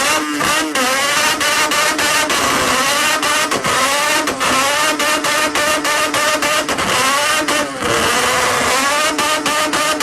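650-horsepower Mazda's engine revving hard as the car is spun. Its pitch climbs and drops again and again, with many sharp cracks from the exhaust.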